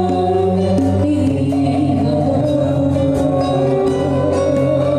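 A female Sundanese kawih singer singing through a microphone, holding long notes over instrumental accompaniment.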